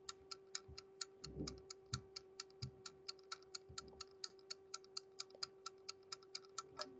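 Countdown timer's ticking sound, faint, fast and even at about six ticks a second, over a steady low hum.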